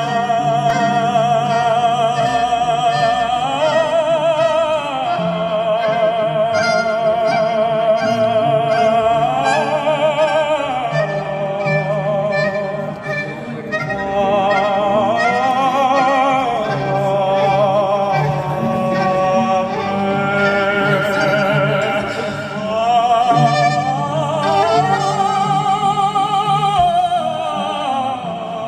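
Live classical-style music: a soaring melody with strong vibrato, in long held notes that rise and fall, over a steady low accompaniment.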